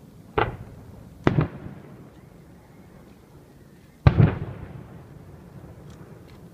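Aerial fireworks shells bursting: three booms, the third, about four seconds in, the loudest, with a tail dying away after it. A few faint crackles follow near the end.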